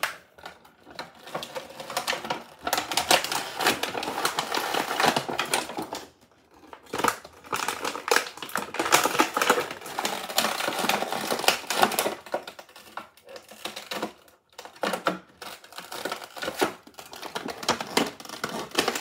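Plastic toy packaging crinkling and crackling as it is handled and pulled open: dense, irregular rapid clicks in long stretches, with a couple of brief pauses.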